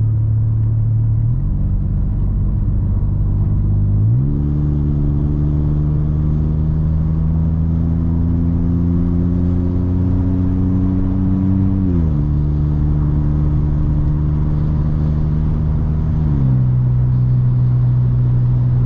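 Volkswagen T-Cross 1.0 TSI three-cylinder turbo engine, its exhaust running open after the catalytic converter, making a loud drone heard from inside the cabin, a big noise even below 1500 rpm. The drone jumps up in pitch about four seconds in, climbs slowly, then drops back in two steps near twelve and sixteen seconds.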